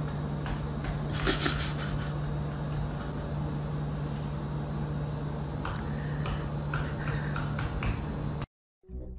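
Steady indoor room noise with a low electrical hum and a thin, high, steady whine, broken by a few faint taps. It cuts off suddenly near the end.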